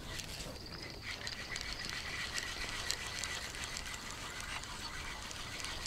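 Fishing reel being cranked to retrieve line, a steady whirring whine with many small clicks from the gears, as a small fish is reeled in.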